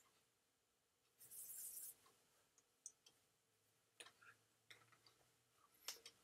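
Near silence: faint clicks and rustles from a man signing, hands brushing together and against his jacket, with a short soft hiss a little over a second in.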